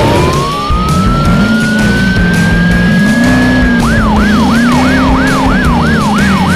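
Emergency-vehicle siren sound effect. It winds up slowly in pitch for about four seconds, then switches to a fast repeating whoop, about two and a half cycles a second, over a lower wavering tone.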